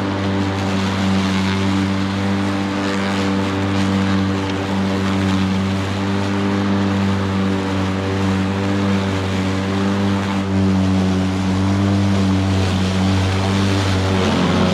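Stiga Twinclip 950e 48-volt battery lawnmower running steadily, its electric motor spinning the blade through tall grass: an even hum with a rushing hiss.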